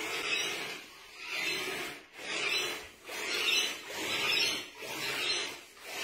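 Remote-control drift car running on a tiled floor: a rasping whoosh of motor and tyres that swells and fades about once a second.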